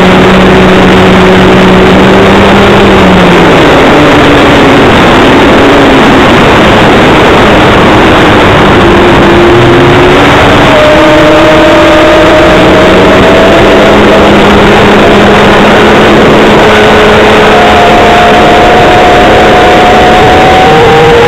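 OS .55AX two-stroke glow engine of a model trainer aircraft in flight, heard from a camera on its wing, its pitch sliding up and down as the throttle and airspeed change. A loud, steady rush of air over the camera runs under it.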